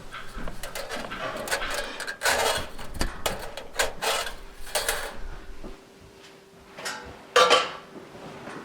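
Water dripping inside a metal rain-gutter downspout: irregular metallic plinks and taps, with one much louder ringing plink about seven and a half seconds in.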